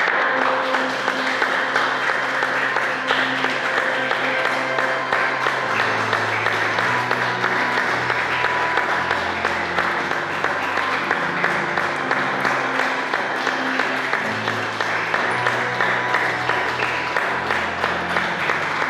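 A crowd of guests applauding steadily, the clapping starting abruptly, over music with sustained notes and a stepping bass line.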